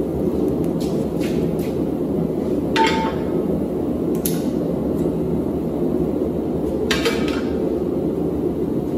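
Metal clanks of a red-hot steel bar being bent into a scroll with locking pliers in a bench vise: a few sharp knocks, the loudest about three seconds in with a brief ring. A steady rushing noise runs underneath.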